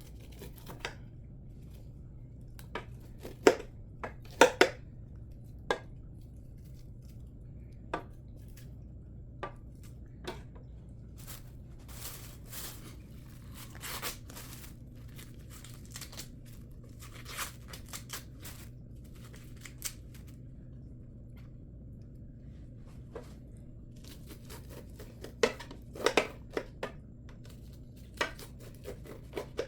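Knife cutting and scraping kernels off ears of corn: scattered short cuts and scrapes, bunched around four seconds in and again near the end, over a steady low hum.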